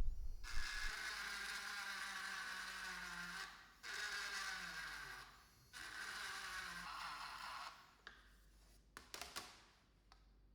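Three long scraping passes, the first about three seconds and the next two shorter, followed by a few light clicks.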